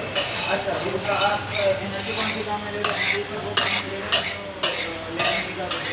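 Metal scraper of a mawa (khoya) kettle's stirrer scraping around the metal pan of cooking milk: a rhythmic metallic scrape about every two-thirds of a second over a low steady hum.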